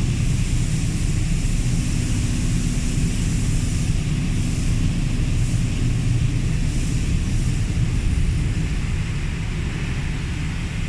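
Steady low rumble of factory machinery and ventilation, with a faint constant hum over it.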